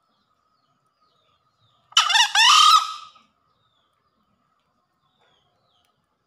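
Male green junglefowl crowing once, a short hoarse crow lasting a little over a second, about two seconds in. Faint chirps of small birds are heard around it.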